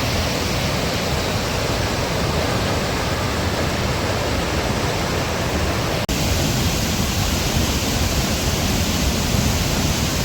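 Ethipothala waterfall's falling water, a steady, even rush, broken by a brief dropout about six seconds in.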